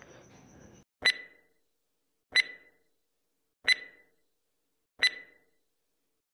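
Countdown timer sound effect: four short clinking ticks with a brief ring, evenly spaced about a second and a quarter apart.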